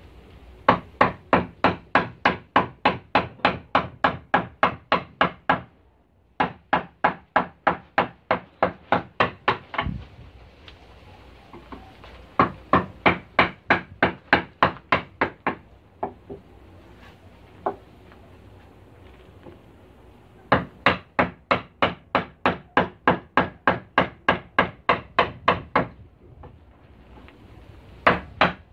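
A wooden mallet striking a carving chisel into a wooden board: rapid, even knocks at about three a second, in runs of several seconds broken by short pauses.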